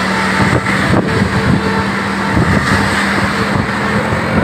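Bus engine running with a steady low hum, under a broad rush of road and traffic noise.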